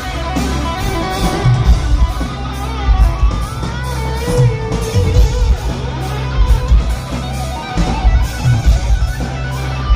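Rock band playing live: electric guitar lines over bass and a steady drum beat.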